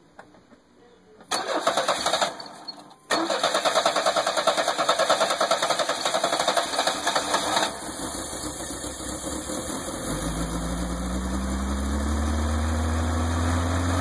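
Vehicle starter cranking the engine for about a second, pausing, then cranking again for several seconds until the engine catches. The engine then runs with its idle speed climbing steadily to a high idle, the sign of a massive vacuum leak.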